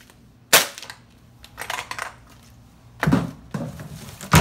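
A string of sharp knocks and crunches: an aluminium can struck underfoot, scuffing steps on gravel, and a plastic wheelie bin's lid banging, the loudest bang near the end.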